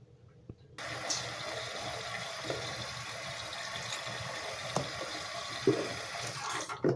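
A bathroom sink tap running, used for face washing: a steady rush of water that starts about a second in and cuts off just before the end, with a few light knocks.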